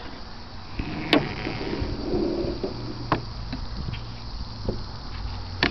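Singer Model 66 sewing machine head being lowered into its oak treadle cabinet: handling rustle with a few sharp wooden knocks, the loudest about a second in.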